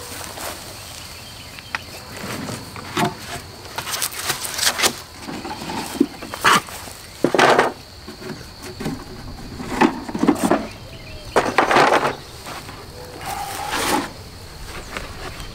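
Wooden beehive box being set down and handled: irregular knocks, clicks and scrapes of wood, with rustling movement, over a faint steady high insect hum.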